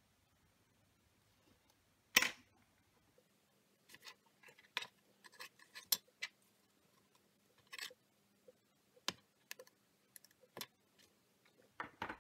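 Light handling noises from paper craft work with a plastic tray of embossing powder: one sharp knock about two seconds in, then scattered small clicks and taps.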